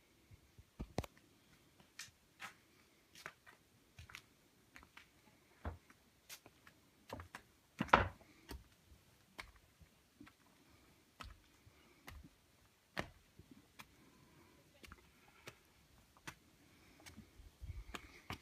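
Footsteps on flat stone slabs: light taps at an even walking pace, with one louder knock about eight seconds in.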